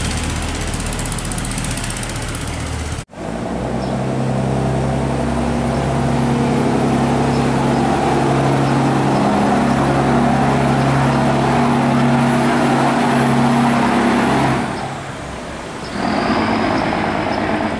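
Large diesel engine of a loaded cargo barge running steadily at close range as the boat passes, over the wash of churning water. The engine sound drops off a little near the end, then returns.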